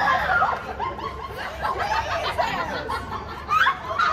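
People laughing in short, choppy bursts, loudest at the start and again near the end.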